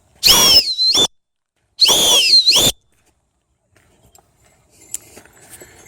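Two loud whistles, each about a second long and sliding in pitch, blown to call a dog back.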